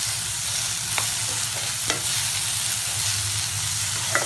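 Shallots, green chillies and freshly added tomato sizzling in hot oil in a non-stick wok while being stirred with a metal spoon, which clicks against the pan a few times. A low steady hum runs underneath.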